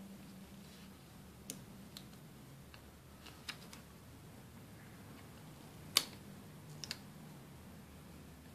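A few light clicks and taps from hands handling and pressing a paper planner page and stickers on a tabletop, the loudest about six seconds in, over a faint steady low hum.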